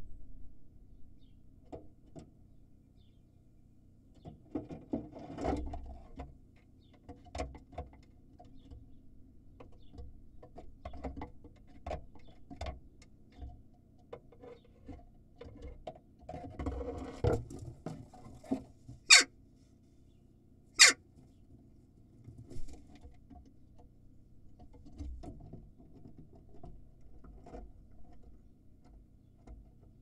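A jackdaw scratching, rustling and knocking about on the nest box while it brings in nesting material, in irregular spurts. Two sharp, loud snaps stand out a little under two seconds apart, past the middle.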